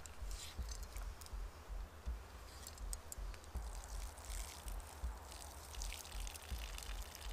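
Water poured off from a stainless steel pot of beechnuts, trickling and dripping in uneven spurts. This is the draining step after the float test that separates the hollow, worm-eaten nuts from the good ones.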